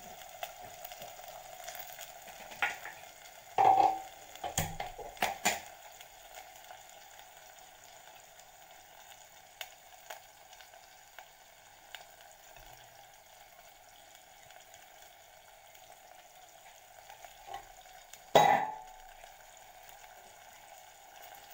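Drumstick leaves simmering in water in a clay pot, a steady soft sizzle, while beaten egg is poured in. A few clicks and knocks of utensils against the pot about three to five seconds in, and a louder knock near the end.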